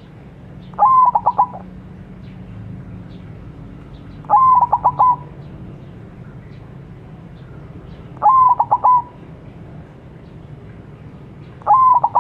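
White zebra dove (perkutut) singing its cooing song: four phrases about every three and a half to four seconds, each a short opening note and then a quick run of four or five clipped notes, the last starting near the end.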